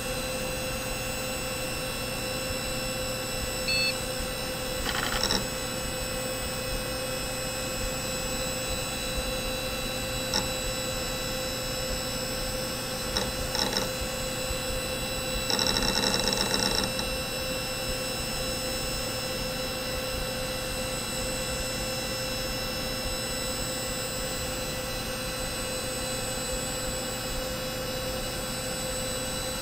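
Olivetti NetStrada 3200 server running, a steady hum with several fixed whining tones. A short high tone comes about four seconds in, a few brief clicks and noises follow, and there is a buzzy burst lasting about a second and a half near the middle.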